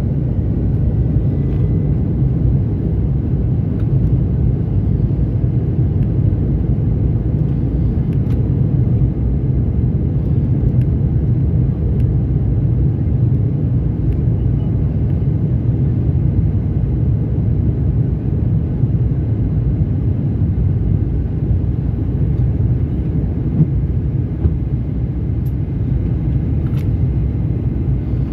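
Steady low rumble of cabin noise inside a Fokker 100 jet airliner in flight, with a couple of faint clicks near the end.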